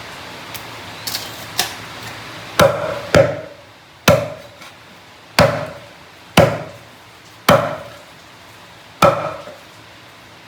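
Kitchen knife chopping hard on a wooden cutting board: a few light taps, then seven heavy chops at uneven intervals, each with a short ringing tail.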